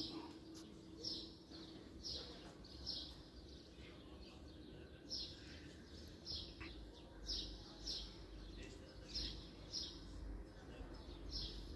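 A small bird chirping over and over, short falling chirps about once a second. A low rumble joins in underneath from about seven seconds in.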